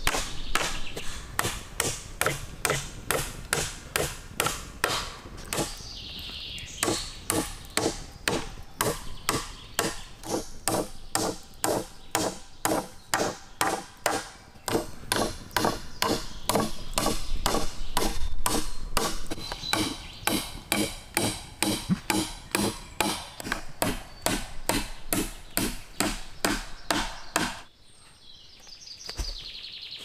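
A hammer knocking thin wooden sticks down onto a log, in steady blows about two a second with a couple of brief pauses. The blows stop near the end, and birds chirp faintly behind them.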